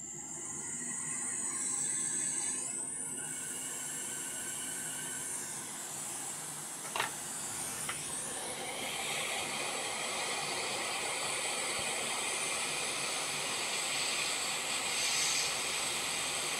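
Hot air rework station blowing a steady hiss of hot air to reflow the solder under a coil (inductor) on a graphics card board. There is a single short tick about seven seconds in.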